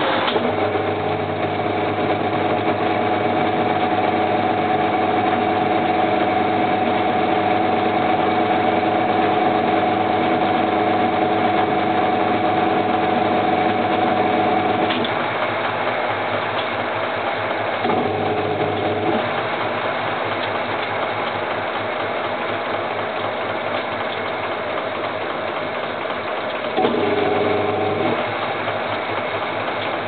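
Top-loading washing machine's electric motor running with a steady hum, driving the belt and water pump, then cutting out about halfway through; it kicks on again twice for about a second each. A continuous hiss runs underneath.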